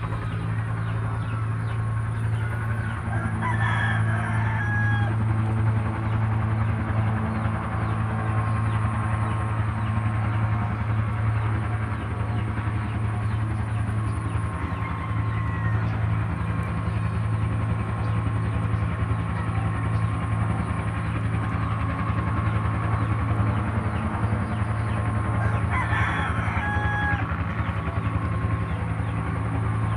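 A rooster crowing twice, once a few seconds in and again near the end, over a steady low hum.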